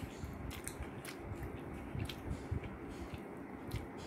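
Chewing and eating sounds close to the microphone: a person chewing food, with scattered small clicks through it.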